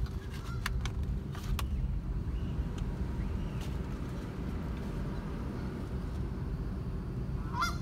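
Steady low rumble of a vehicle creeping along at low speed, heard from inside the cabin. A few faint clicks come in the first second or two, and a short higher-pitched sound comes near the end.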